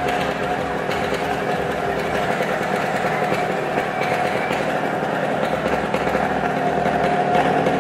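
Motorcycle engines running steadily on a wall-of-death drum, getting a little louder near the end.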